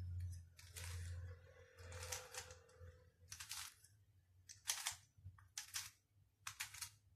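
Windmill puzzle cube's plastic layers being turned by hand: a run of quick, faint clicking turns, roughly one or two a second.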